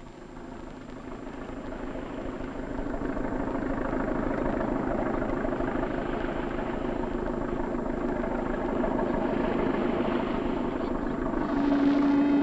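Tugboat engine running with a steady drone, fading in over the first few seconds. A low steady note joins near the end.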